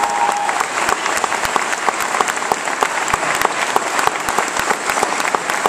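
Large audience applauding steadily: dense, many-handed clapping.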